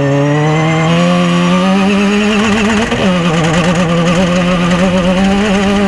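Off-road race vehicle's engine running hard at high revs. Its pitch climbs gradually, dips briefly about three seconds in, then holds steady and a little higher with a wavering pitch.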